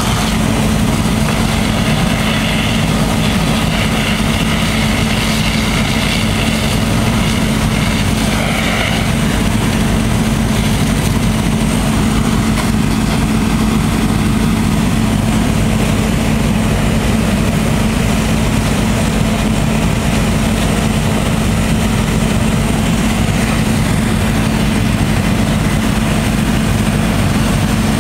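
Fire engine's engine running at a steady speed to drive its water pump during firefighting, a constant low hum with a strong steady tone.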